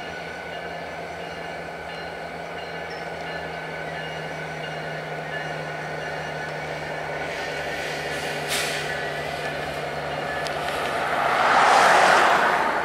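Diesel-electric locomotives running at low throttle as they move slowly through the yard, with a short hiss of air about two-thirds of the way in. Near the end a road vehicle passes close by, its noise swelling loud and then fading.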